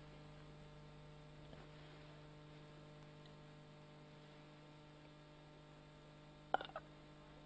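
Quiet room tone with a steady electrical mains hum in the recording, and one short click about six and a half seconds in.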